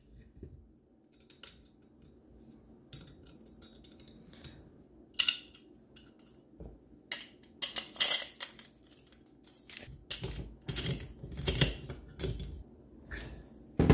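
Irregular clinks and knocks of small metal engine parts being handled and set down on a wooden board while a bolt is screwed into a small engine's aluminium cylinder.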